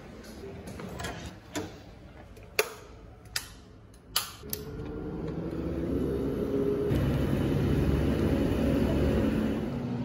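Several sharp clicks and knocks, then about halfway a steady low rumbling hum swells up and holds.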